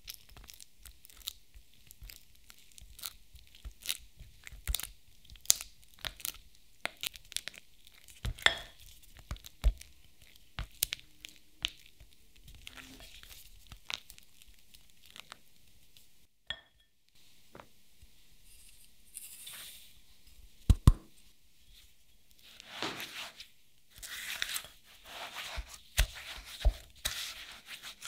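Silicone spatula mashing and stirring blocks of cream cheese in a glass bowl, with many sharp taps and clicks of the spatula against the glass. In the last few seconds the strokes turn into longer, scraping sweeps as granulated sugar is worked into the cheese.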